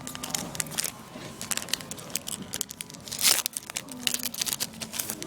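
Foil trading-card booster pack being torn open and its wrapper crinkled: a run of sharp crackles and rips, the loudest rip about three seconds in.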